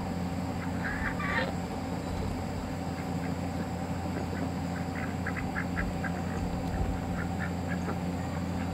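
Domestic ducks quacking: a short burst of calls about a second in and a run of short, quick quacks around five to six seconds in, over a steady low hum.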